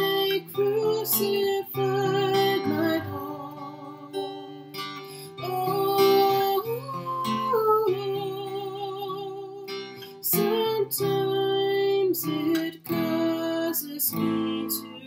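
A woman singing a slow hymn with long held notes, accompanying herself on acoustic guitar.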